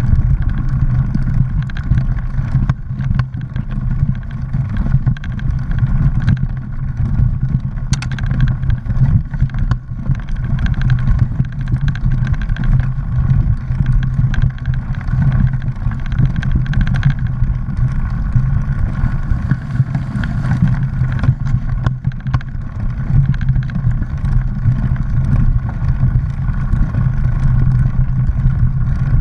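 Mountain bike riding a dirt singletrack: a steady low rumble of the tyres rolling over dirt and leaves, with many short rattles and clicks from the bike and camera mount jolting over bumps.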